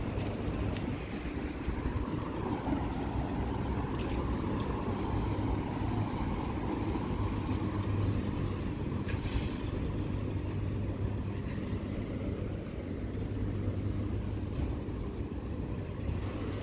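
City street ambience: a steady hum of road traffic with a few faint clicks.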